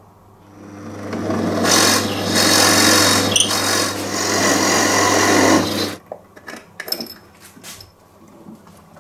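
Drill press motor spinning up with a steady hum while the bit cuts into a solid walnut block, giving a loud rasping noise that cuts off suddenly about six seconds in. A few light clicks and knocks follow.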